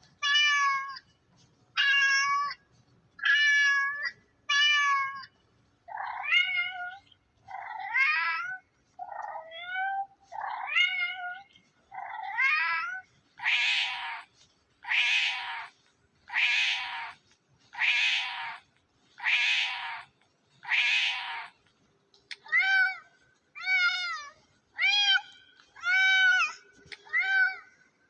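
A domestic cat meowing over and over, about twenty separate meows roughly a second and a half apart. The meows vary in pitch and shape: the first few are higher, the next ones are lower and rising, a run in the middle is harsher and rougher, and the last ones arch up and fall.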